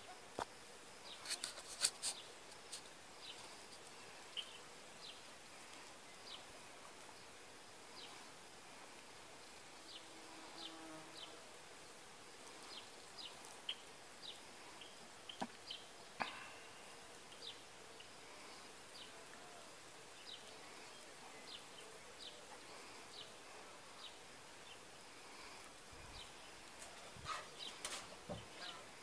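Quiet outdoor farmyard ambience with many short, high chirps scattered throughout, from small birds or insects. A few sharp knocks and scuffles come about two seconds in and again near the end.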